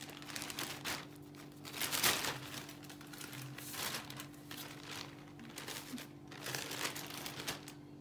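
Thin plastic carrier bag crinkling and rustling in irregular bursts as it is moved about, loudest about two seconds in.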